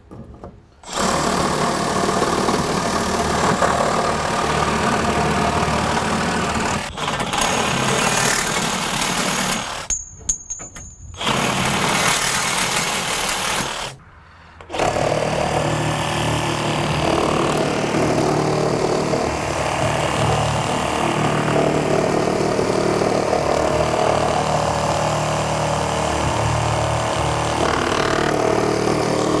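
Makita cordless reciprocating saws cutting wood, the blade running steadily through the lumber: first the 18V XRJ06 through a 2x4, then the 36V XRJ05 through a 4x4 post. There are two short breaks in the cutting, about ten and fourteen seconds in.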